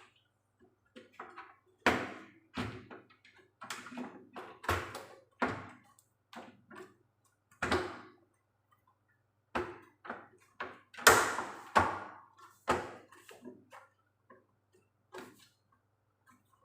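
Plastic parts of a washing machine door handle being pushed and knocked into place: a string of irregular clicks and knocks, the loudest cluster about eleven seconds in.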